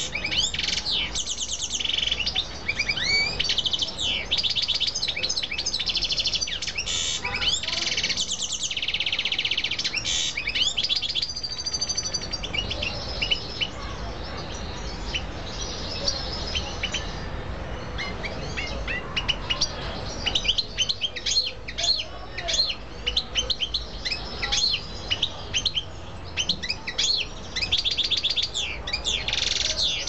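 Small caged finches, a canary and a European goldfinch, singing and chirping: fast trilled song phrases near the start, around eight seconds in and near the end, with a dense run of short, sharp chirps in the last third.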